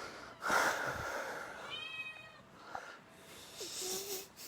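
Kitten meowing once, a short high-pitched meow about two seconds in. Around it are two bursts of breathy noise, the loudest about half a second in.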